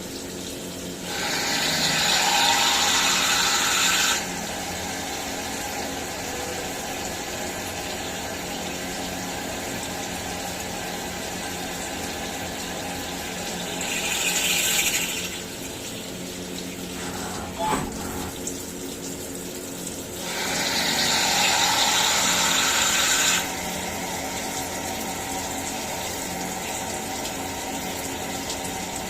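CNC milling machine running steadily with a hum of constant tones, broken three times by a loud rushing, hissing noise: about a second in, around the middle, and again about two-thirds through.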